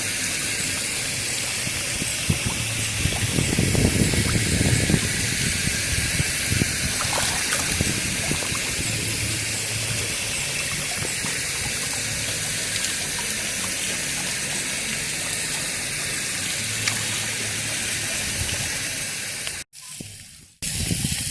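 Water gushing steadily, with a low hum underneath; it cuts out briefly near the end.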